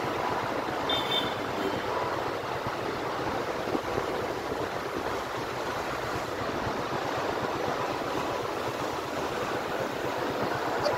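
Riding noise from a moving motorbike: steady wind rush over the microphone, with road and engine noise beneath.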